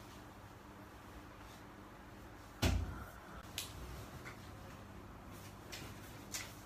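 A single dull thump about two and a half seconds in, followed by a few light clicks and taps over quiet room tone.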